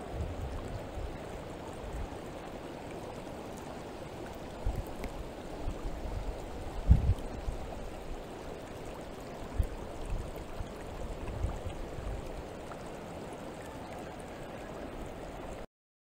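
Shallow stream water rippling over stones, a steady rushing, with a few low thumps of wind buffeting the microphone. The loudest thump comes about a third of the way in. The sound cuts off abruptly just before the end.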